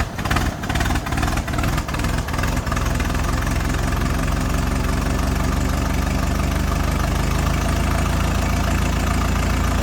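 1923 Model T Ford's four-cylinder engine running unevenly, with separate firing knocks, then settling into a steady idle about three seconds in.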